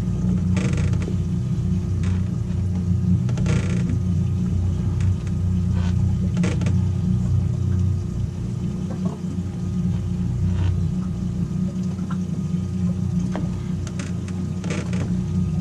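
Outboard motors idling with a steady low hum while a fishing reel is wound in against a hooked fish, with a few short sharp rattles from the reel and tackle.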